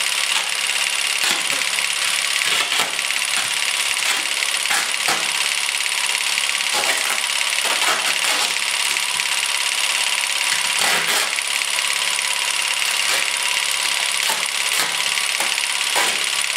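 A loud, steady hiss runs throughout, like a running motor or blower, whose source is not shown. Scattered short crackles and snaps of plastic sheeting and adhesive tape are heard as tape is unrolled and wound around a plastic-wrapped head.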